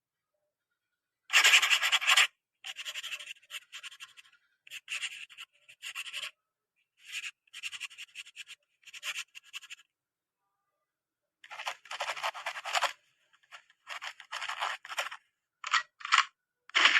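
Repeated bursts of rasping, scratchy noise, each up to about a second long, with short silences between; the first, about a second in, is the loudest.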